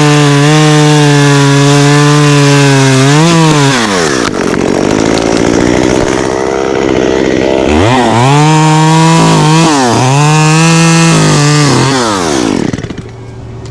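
Two-stroke chainsaw at full throttle. About three to four seconds in, its pitch sags as it bogs into the wood and it cuts under load for several seconds. It then revs back up with a couple of brief dips, and the throttle is released near the end.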